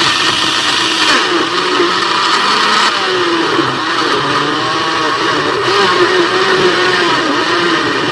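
Countertop blender running, churning avocado, banana, sugar, milk powder and water into a thick smoothie; the motor's pitch wavers as the mixture turns over.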